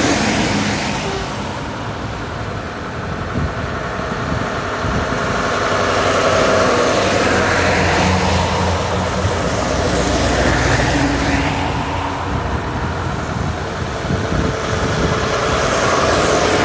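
Heavy lorries driving past one after another, among them a Scania R580 with its V8 diesel, their engines running steadily. Tyre and air hiss swells as each one goes by, about four passes.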